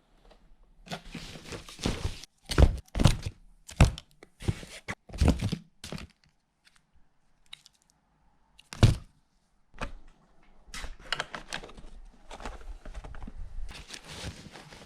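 A series of knocks and thunks with rustling and scraping handling noise in a small room: several sharp knocks in the first six seconds, one loud knock about nine seconds in, then softer scraping and rustling.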